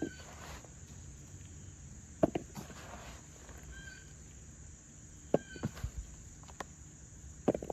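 Potatoes being dug out of container soil by hand: a few scattered knocks and short scrapes of soil being moved. Under them runs a steady, high insect chirring.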